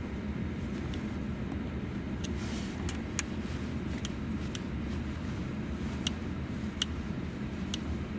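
Small hex key tightening the screws of a plastic headrest monitor mount clamp, giving about a dozen faint, scattered clicks over a steady low rumble inside a car.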